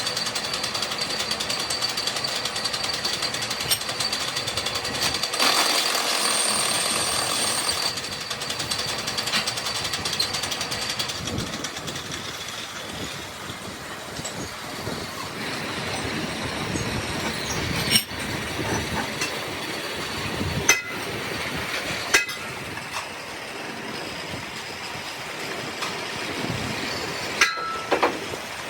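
Workshop machinery running steadily with a rapid rattling clatter, with a few sharp knocks in the second half.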